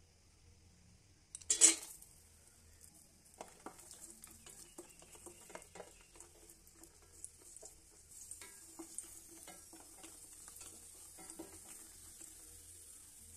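Cashews, almonds and raisins dropping into hot ghee and oil in a stainless steel pan, with a short loud sizzle about a second and a half in. Then a spatula stirs and scrapes them against the steel in many small clicks, while a steady frying sizzle builds up over the second half.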